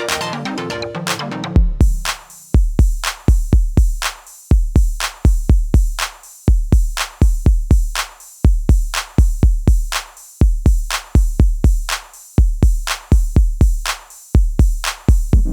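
Electronic background music: a busy melodic section that about a second and a half in drops to a bare drum-machine beat of deep kick drums with sharp clicks on top, the fuller arrangement coming back near the end.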